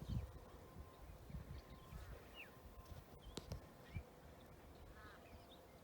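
Faint outdoor quiet with a few short bird chirps, two of them clearer about two and a half and five seconds in. Scattered low thumps on the microphone.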